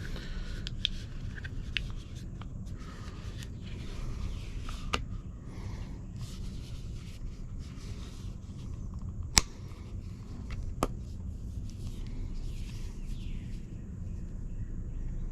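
A phone being handled and pressed into a thin Quad Lock case: light rustling and scattered small clicks, with a sharp snap about nine seconds in and another about a second and a half later, over a steady low hum.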